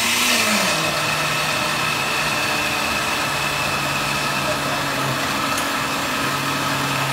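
Countertop blender running steadily, its motor puréeing soaked black-eyed peas, red pepper and onion with water into a thick batter. The motor's hum drops a little in pitch about a second in and then holds.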